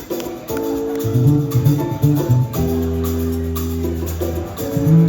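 Live band music: held chords over a bass line that comes in about a second in, with a steady shaker-like percussion beat and no singing.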